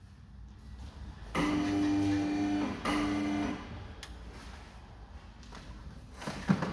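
Two steady mechanical buzzes from a small motor, the first about a second long and the second shorter, with a sharp knock near the end.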